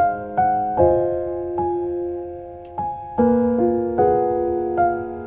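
Background music: a gentle piano playing slow notes and chords, each struck and left to fade.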